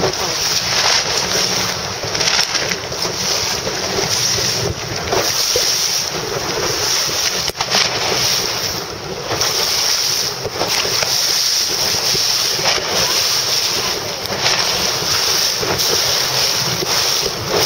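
Strong wind buffeting the microphone in gusts, over the rush and splash of choppy sea water.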